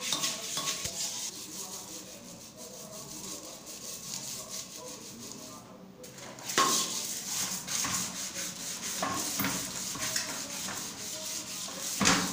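Toilet brush scrubbing the inside of a ceramic toilet bowl, its bristles rubbing against the porcelain and swishing through the water. The scrubbing is softer for a few seconds in the middle, then harder again from about halfway, with a brief louder knock near the end.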